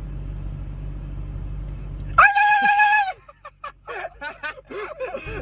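A person's voice making sound effects: a loud, high held squeal lasting about a second, beginning about two seconds in, then a string of short choppy squeaks and vocal noises. A steady low hum runs underneath before and after them.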